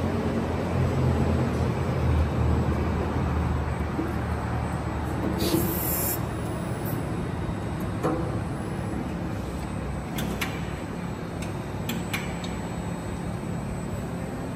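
CNC press brake running in a machine shop: a steady low hum and noise, with a few light clicks and a short hiss about five to six seconds in.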